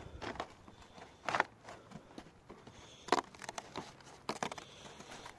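Paper and cardboard packaging being handled and torn open, a few short rustling and crinkling bursts.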